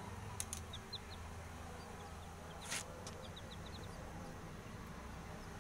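Baby chicks cheeping faintly in short runs of quick high peeps, over a low steady background hum, with one brief rustle about halfway through.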